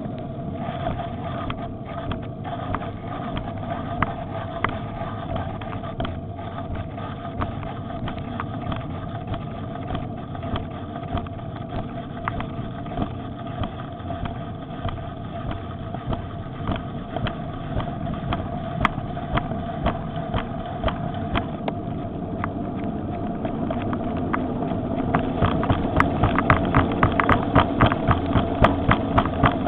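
Electric bicycle riding on a paved road: a steady whine from its motor over tyre and wind noise. Near the end a quick, regular clicking, several clicks a second, grows louder.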